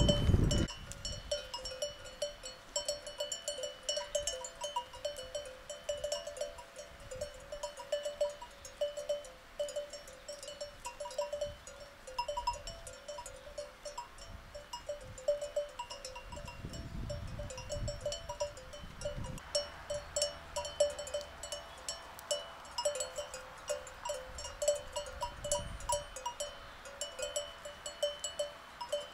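Sheep bells clinking irregularly as a grazing flock moves about, many small bells ringing at once.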